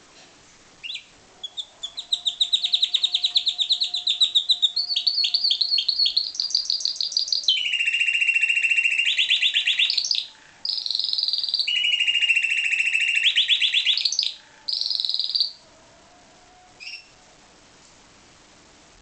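Timbrado canary singing a long song of fast trilled rolls of repeated high notes, with two brief breaks. Single short chirps come just before the song and again near the end.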